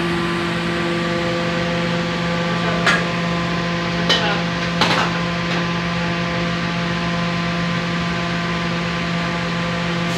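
Commercial gas wok burner running at full flame under a wok: a steady roar with a steady hum beneath it. Three sharp metal knocks come about three, four and five seconds in.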